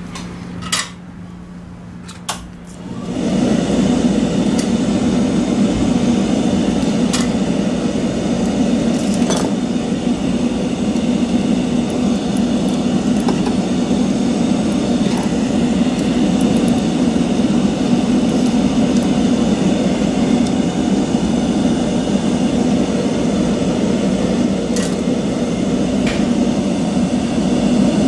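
A fan or blower switches on about three seconds in and then runs steadily, a constant airy whirr with a low hum, with a few light clicks of handling over it.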